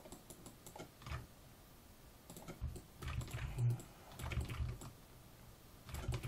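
Computer keyboard keys and mouse clicks tapping in short irregular clusters, loudest around three to four and a half seconds in.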